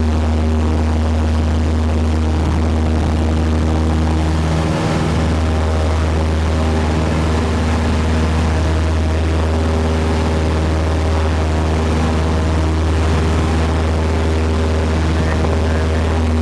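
Cessna 172's piston engine and propeller running steadily at a constant power setting, a loud drone with a deep low hum and a stack of steady tones above it.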